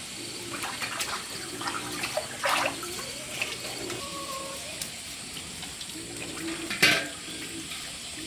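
Stream water splashing and running, with a couple of sharper splashes, the loudest about seven seconds in.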